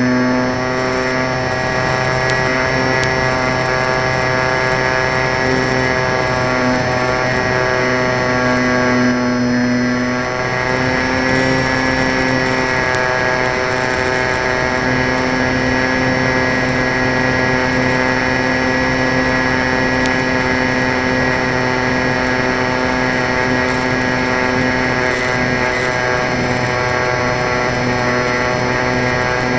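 Electric motor and propeller of an EP Falcon 3 radio-controlled model plane, heard close up from a camera on board, running at a steady high whine with air rushing past. The pitch eases briefly about ten seconds in and then holds steady.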